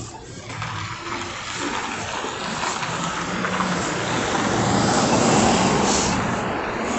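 Car driving past on a city street, its tyre and engine noise swelling gradually to a peak about five seconds in, then easing slightly.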